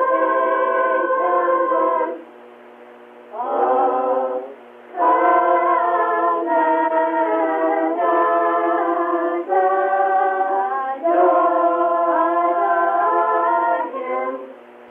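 A group of children singing a Christmas carol, heard from an old cassette tape recording, thin-sounding with no bass or treble. The singing comes in phrases, with short breaths about two seconds in, a little later, and near the end.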